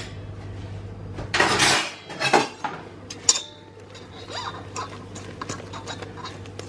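Wire whisk stirring a thick, crumbly cake batter in a bowl, scraping and clinking against the side. The loudest scrape comes about a second and a half in, and lighter clicks follow.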